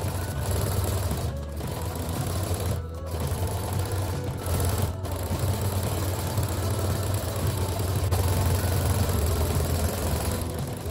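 Brother Innovis 15P domestic sewing machine running steadily, stitching the hem of a jersey knit dress with a zigzag or stretch stitch.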